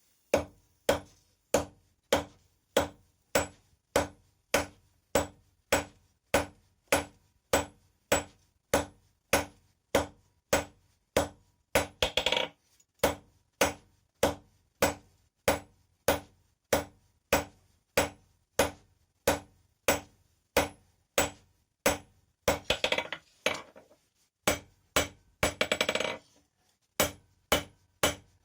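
Hand hammer striking steel on an anvil in a steady rhythm of about two blows a second, each blow ringing briefly. A few short flurries of quick light clattering come about halfway through and again near the end.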